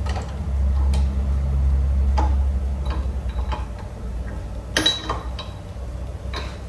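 Scattered sharp metallic clicks and clinks of tools and engine parts being handled during engine work, over a low steady rumble. The loudest click comes a little under five seconds in.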